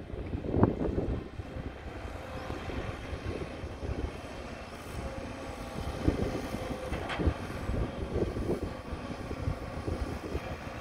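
Caterpillar 312 excavator's diesel engine running steadily under load as it digs and swings earth into a dump truck, with an occasional knock.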